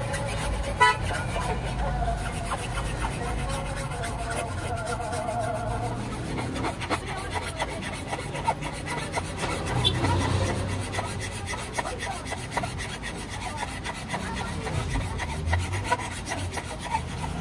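A flat metal blade scraping along the edge of a plastic car tail-light lens in repeated short, irregular strokes.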